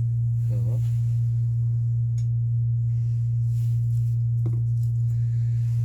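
Electric motor of a knife and scissor sharpening machine running with a steady, unbroken low hum.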